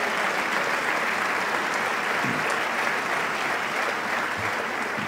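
Sustained applause from a large crowd of people clapping, steady throughout.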